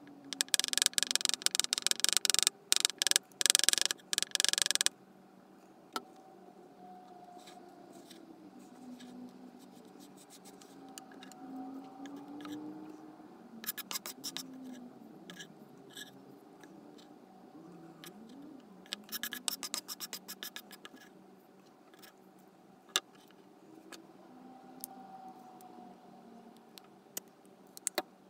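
A knife blade chopping and scraping crumbled bath bomb on a wooden board: a dense run of crisp crunching clicks for the first five seconds, then quieter scraping, two shorter bursts of crunching and a few single clicks.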